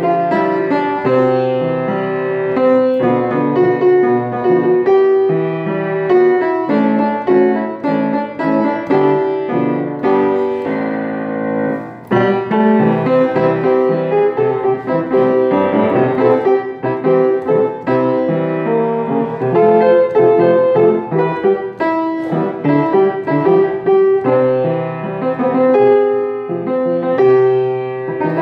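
Piano being played, a melody over bass chords, stopping briefly about twelve seconds in and then starting again.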